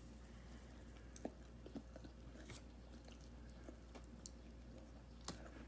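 Faint chewing of a mouthful of sub sandwich, with a few soft mouth clicks.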